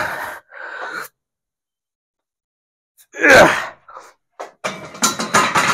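A man grunting with effort as he presses a heavy barbell, with two drawn-out groans falling in pitch about three seconds apart. Near the end come a run of heavy breaths and knocks.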